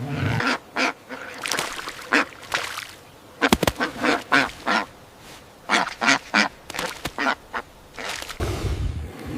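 Ducks quacking in a rapid series of short, harsh calls, with a low rumble near the end.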